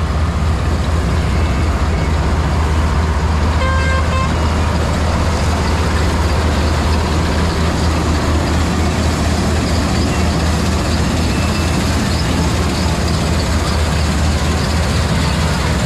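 Combine harvester running steadily under load, a heavy continuous engine drone with the machine's threshing clatter. A brief pitched tone sounds about four seconds in.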